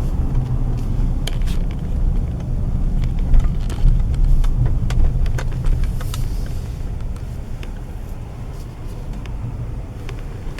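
Car driving on the road, heard from inside the cabin: a steady low engine and road rumble with scattered light clicks and knocks, easing off over the last few seconds.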